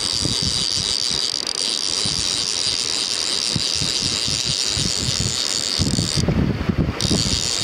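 River current rushing steadily, with wind buffeting the microphone in low gusts that grow stronger about six seconds in.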